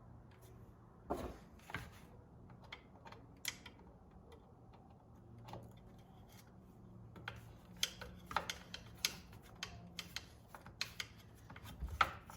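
Light clicks and taps of plastic and metal parts being handled as the power head is tilted and worked onto the shaft assembly. They come sparsely at first and more often in the second half, over a faint steady hum.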